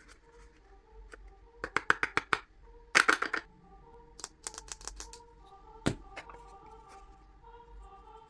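Hands handling paper: short runs of crisp taps and crinkles about two and three seconds in, more taps around five seconds, and one sharp tap near six seconds. Soft background music plays under it.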